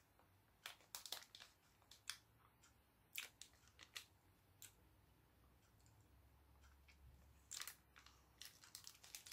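Near silence with faint, scattered clicks and crackles from chewing a small soft Japanese candy and handling its small plastic packet.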